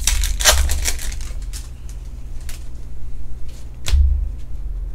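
Glossy Topps Chrome Formula 1 trading cards being flicked and slid one behind another in the hands. There is a quick run of crisp clicks and scrapes at first, then a few spaced flicks, and a sharper snap with a low knock about four seconds in.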